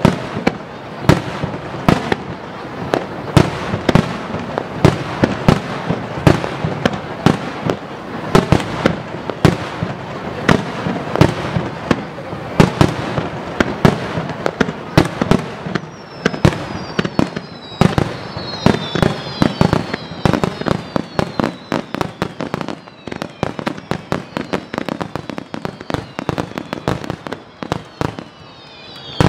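Aerial firework shells bursting in rapid, dense succession, a steady barrage of bangs and crackle. From about halfway in, many high whistles falling in pitch join the bursts.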